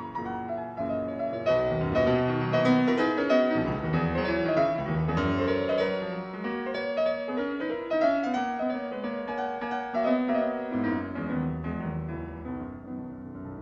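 Piano music, growing softer near the end.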